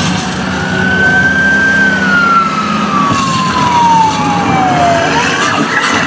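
Dark-ride soundtrack effect played over the ride's speakers: a single whistling tone that rises slightly, falls steadily for about three seconds, then sweeps back up near the end, over a steady low hum and rumble.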